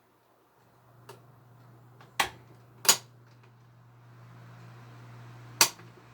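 1988 Galaxy 2150 electric fan switched on: a steady motor hum comes in about half a second in and a rush of air slowly builds as the blades come up to speed. Sharp clicks break in about two, three and five and a half seconds in.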